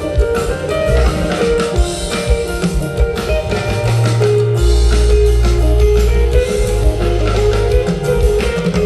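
Live rock band playing an instrumental jam: electric guitar lines over drum kit, with long held low bass notes from about halfway through.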